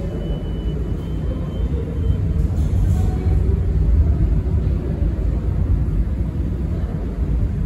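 Steady low rumble of a New York City subway train in the tunnel, swelling slightly midway, with a faint thin high squeal in the first couple of seconds.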